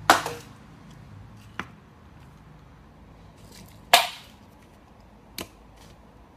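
Sharp clacks of small plastic lighters knocking on a wooden floor and step as a cat bats them about: a loud clack just after the start and another about four seconds in, with two fainter knocks between and after.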